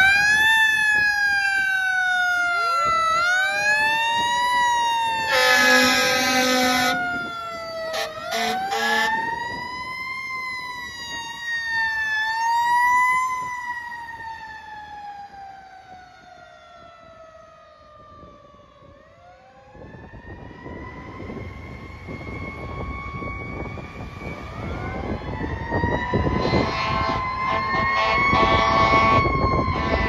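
A fire truck's Federal Q mechanical siren winds up and down over and over, cut by two long air horn blasts in the first third. The siren then winds down slowly and fades for a few seconds. It winds up again over loud diesel truck engine noise, with more air horn blasts near the end.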